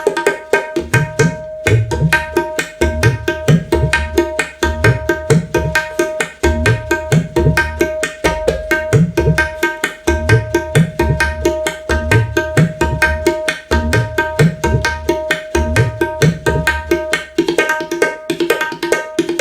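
Music with fast hand-drum percussion, a steady held drone note and deep bass notes, played through a pair of Hayden 5-inch two-way studio monitors and picked up by a phone microphone about five feet away.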